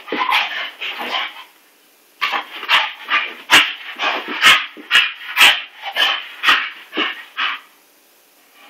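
English Bull Terrier making short, rapid vocal noises, about two a second, as it rolls and wriggles on its back on carpet after a bath. A brief pause comes about a second and a half in, and the noises stop about a second before the end.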